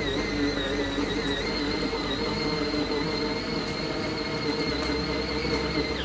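Portable mini top-load washing machine running, its small motor giving a steady high-pitched whine while it churns clothes through soapy water. The sound cuts off suddenly at the very end.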